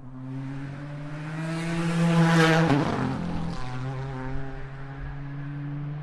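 GT Le Mans race car passing at speed, engine at high revs. Its note gets louder to a peak a little past two seconds in, drops in pitch as the car goes by, then carries on more quietly as it moves away.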